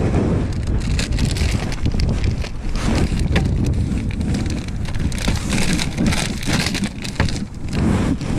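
Strong wind buffeting the microphone in uneven gusts, with choppy water splashing around the kayak.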